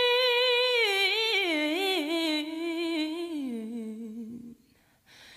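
A solo female voice singing a cappella without clear words. It holds a long note, then breaks into a wavering melismatic run that steps down in pitch and fades out about four and a half seconds in.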